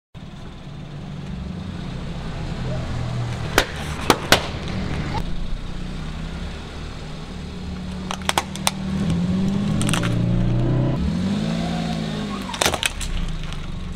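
A car engine running at low speed as the car's tyre rolls over objects on asphalt. Three sharp pops come close together about four seconds in as balloons burst, a few cracks follow around eight seconds as a plastic toy car breaks, and more cracks come near the end as a plastic toy is crushed.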